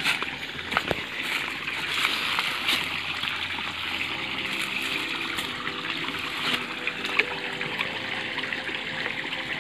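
Shallow canal water trickling and babbling over stones, a steady run of water.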